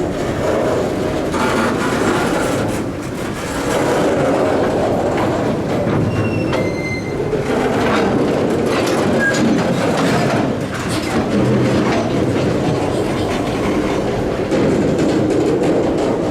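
Canadian Pacific freight train rolling slowly past, its wheels clacking over the rail joints, with a brief high wheel squeal about six and a half seconds in.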